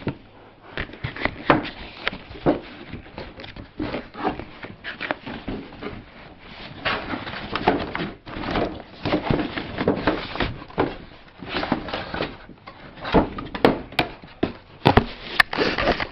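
Irregular rustling, scraping and knocking of a cardboard toy box and its packaging being handled and opened to free a doll.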